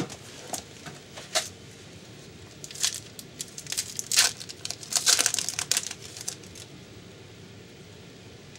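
Trading-card pack and cards being handled: short bursts of crinkling and rustling with light clicks, settling down after about six and a half seconds.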